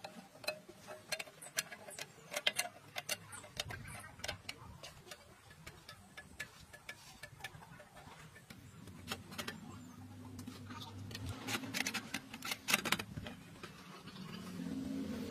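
Scattered light clicks and taps of metal parts being handled on a small grinding machine. A low hum builds in the second half.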